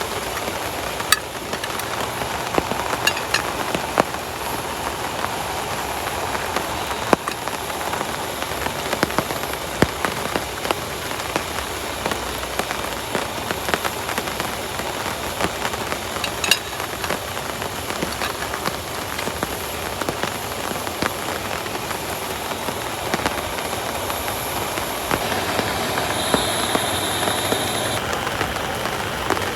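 Heavy rain falling steadily, with frequent sharp taps of individual drops.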